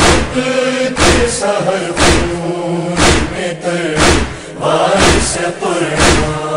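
Noha chorus chanting a drawn-out lament refrain. Under it, regular matam chest-beating thumps land about once a second.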